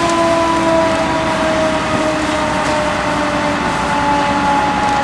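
A burning van being doused with a fire hose: a steady, dense rushing hiss from the water stream, the fire and the steam. Over it sounds a sustained tone that slowly falls in pitch.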